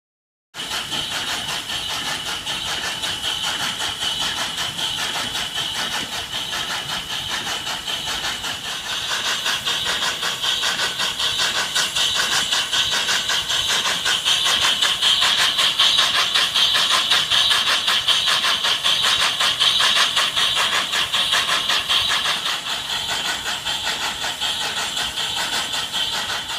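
Worthington Simpson steam-driven reciprocating boiler feed pump running fast, at emergency speed, after a major rebuild: a rapid, even clatter of its valves and rods with a high hiss over it. It gets louder about nine seconds in and eases slightly near the end.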